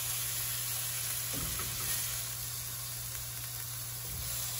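Hot skillet sizzling steadily where chicken has been pan-frying, with a light knock about a second and a half in.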